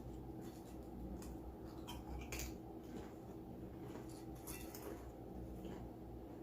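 Quiet room tone: a steady low hum with a few short, faint clicks and rustles scattered through it.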